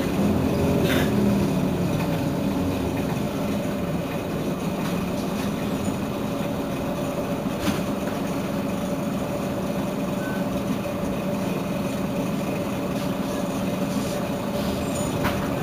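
Heuliez GX 327 city bus running steadily, with a constant mid-pitched hum over its engine. It is a little louder for the first couple of seconds, then settles, with a few faint clicks along the way.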